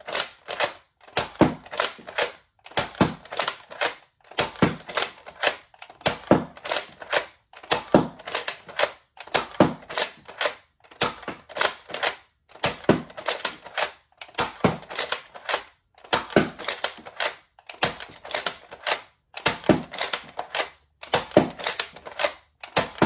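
A Nerf Elite 2.0 Shockwave pump-action dart blaster is pumped and fired over and over, loaded with Elite darts. The shots come about once every second and a half, each a short cluster of sharp plastic clicks and snaps.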